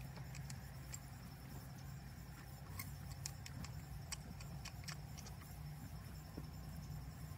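Faint scraping and a scatter of short, sharp clicks from a hoof pick working dirt out of a horse's raised hoof, over a low steady background hum.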